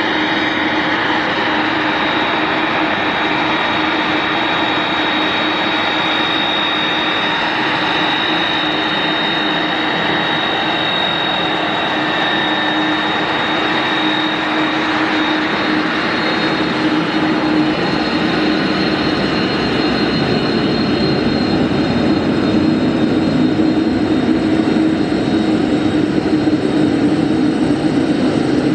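Airbus A310 airliner's twin jet engines running at taxi power. The sound is a steady rushing whine with a high held tone, growing slightly louder over the second half as the aircraft comes nearer.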